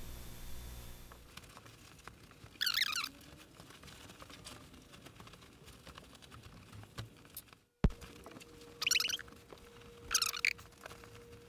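Woven upholstery fabric rustling in short bursts, three times, as a cushion cover is handled and worked over a cushion on a worktable. A faint steady hum runs in the second half.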